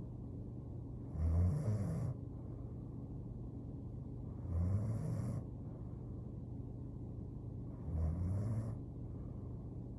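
A sleeping woman snoring, three snores about three and a half seconds apart, over a steady low hum.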